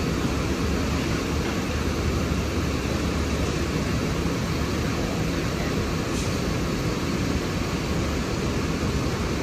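Steady low rumble and hiss of big diesel coaches idling.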